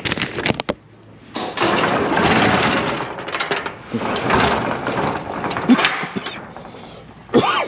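Steel roll-up garage door being pulled down shut, its ribbed metal curtain rattling in the tracks for several seconds, with a few sharp knocks near the end as it closes.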